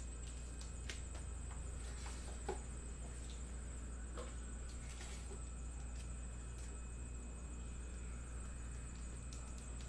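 Light scattered clicks and soft rustles of football trading cards being handled by hand on a table mat, over a steady electrical hum and a faint high-pitched whine.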